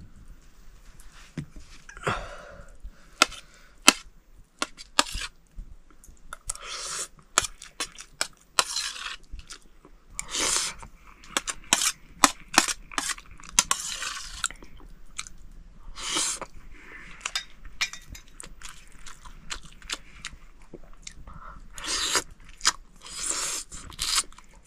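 A person eating chicken curry and rice, chewing and crunching with many irregular crisp clicks and wet smacks.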